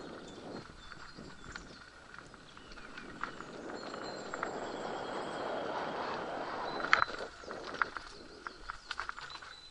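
Mountain bike rolling along a forest dirt trail: tyre noise on the path that swells from about three seconds in, with scattered clicks and rattles and one sharp knock about seven seconds in. Birds sing faintly in the background.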